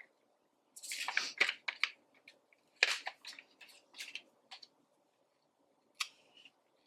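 Sticker sheets handled and stickers peeled and pressed into a paper planner: short crinkly rustles and clicks in several bursts, the longest about a second in.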